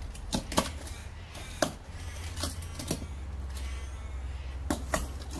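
Irregular clicks and light clatter of small die-cast toy cars being rummaged through, about seven sharp knocks over five seconds, over a steady low rumble.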